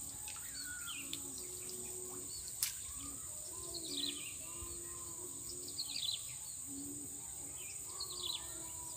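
Countryside ambience: a steady high insect drone, with birds calling, short falling chirps every couple of seconds over lower, warbling notes. A single sharp click about two and a half seconds in.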